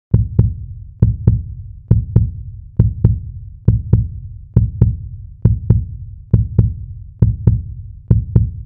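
Background beat of paired low thumps, lub-dub like a heartbeat, repeating about once every 0.9 seconds with no melody. It starts abruptly after a moment of silence.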